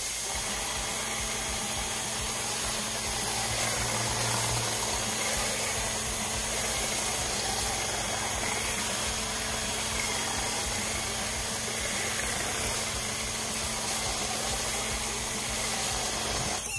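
Electric pressure washer running steadily, with the hiss of its foam cannon spraying soapy foam and water; it cuts off suddenly at the very end.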